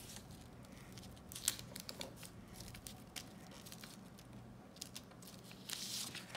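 Faint paper crinkling and rustling as taped sheets of paper are handled and pressed on a table, with a few sharp crackles and a brief louder rustle near the end.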